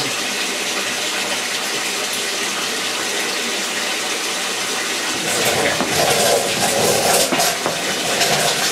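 Water running steadily out of a small submersible pump's hose into a plastic tote as the pump drains soaked stone-wool grow medium; the flow grows louder and fuller about five seconds in.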